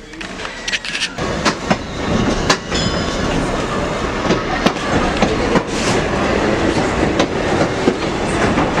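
Train rolling along the track: a steady rumble with frequent irregular clicks and clanks of the wheels on rail joints, growing louder about a second in. A brief high squeal about two and a half seconds in.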